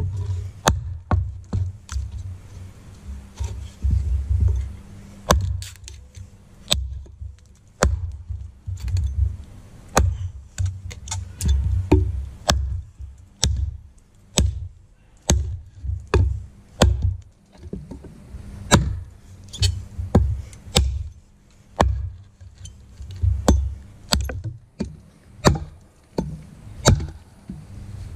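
Wenger Blades Beohawk hatchet chopping into a 4-inch log: a steady run of sharp chops, about one or two a second, as the blade bites into the wood.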